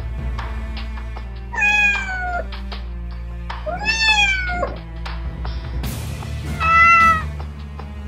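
Kittens meowing three times, high thin calls each under a second long, the first falling in pitch, over background music.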